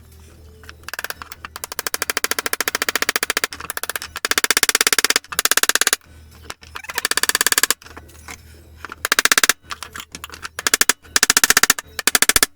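Rapid runs of sharp mechanical clicks, many a second, in repeated bursts of about half a second to a second and a half with short pauses between, starting about a second in.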